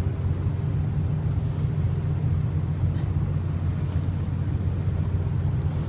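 Tour boat's engine running under way with a steady low drone, with wind on the microphone.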